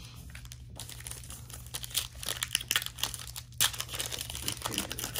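Foil trading card pack being torn open and crinkled in the hands: irregular crisp crackling that starts about a second in.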